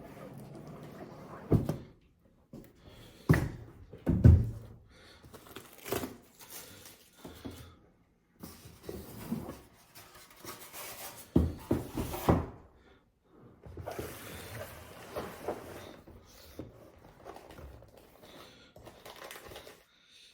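A large cardboard box being opened and its packaging handled: scattered thumps and knocks between stretches of rustling and scraping, with the loudest knocks about four seconds in and again around the middle.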